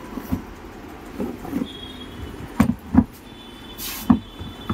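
Handling noise of a heavy impact wrench being moved in its cardboard box and onto a table: faint rustling with three dull knocks, the loudest about three seconds in, and a brief hiss just before the last one. The wrench itself is not running.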